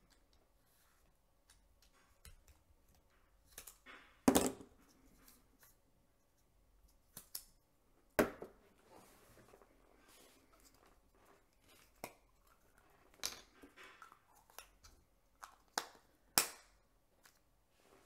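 Small plastic parts being handled on a tabletop: a film leader retriever, a 35 mm film cartridge and a plastic film canister from a disassembled disposable camera. There are several sharp clicks and knocks with soft rustling between them, the loudest about four seconds in.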